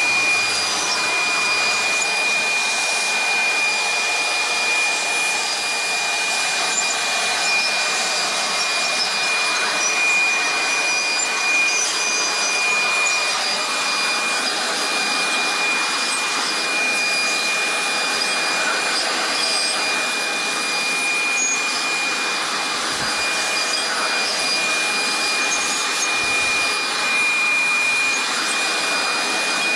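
Corded electric leaf blower running steadily, blowing rinse water off an engine block: a rush of air with a high steady whine over it.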